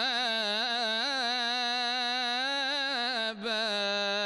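A solo male voice singing an Arabic madih, a praise song for the Prophet, drawing out one syllable in a long wavering, ornamented run. About three seconds in it breaks briefly for breath, then settles on a steadier held note on the word 'wa-mahāban'.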